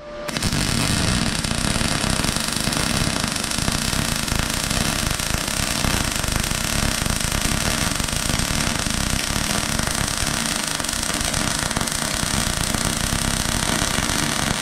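Arc welding a plate onto a locomotive footplate: the arc crackles steadily for the whole stretch, a continuous dense sputter with no breaks.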